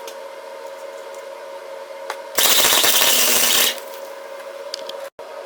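An electric welding arc crackles loudly for about a second and a half, about halfway through, as a short weld is laid on a small steel pipe piece for a tailgate hinge. A steady hum runs under it.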